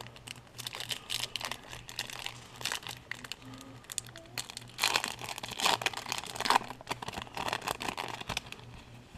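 A trading-card pack wrapper being torn open and crinkled by hand, in irregular crackles that are loudest around the middle.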